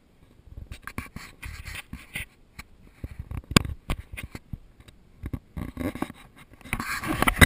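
Irregular scraping, rustling and clicking of a handheld camera being moved and rubbed against the car's door and window frame, with one sharp knock about halfway through and a louder stretch of scraping near the end.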